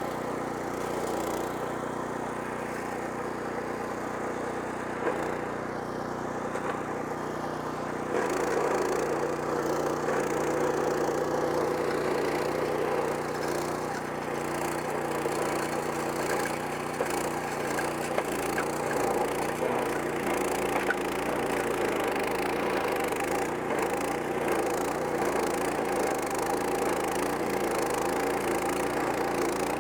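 PowerKing PK0803 stump grinder cutting into a stump's roots: the 14 HP Kohler Command Pro engine runs under load while the toothed cutting wheel chews through wood. The grinding grows louder about eight seconds in, and from there the engine note wavers as the load changes.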